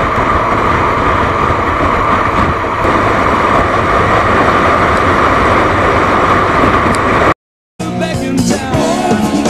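Motorcycle running at road speed, heard as a steady mix of engine and wind rush on a bike-mounted camera. It cuts off sharply about seven seconds in, and after a brief silence background music starts.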